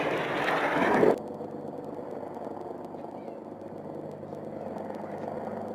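A loud burst of rushing noise cuts off abruptly about a second in. It gives way to the steady drone of a helicopter's engine and rotor.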